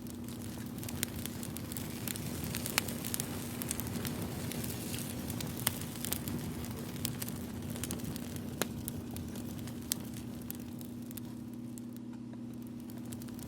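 Wood fire crackling, with scattered sharp pops over a steady low hum.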